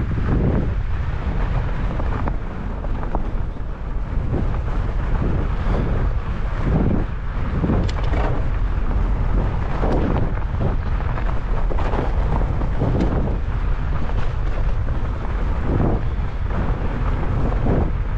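Wind buffeting the microphone of a fat bike moving fast over a snowy trail: a steady low rumble with scattered knocks and rattles as the bike goes over bumps.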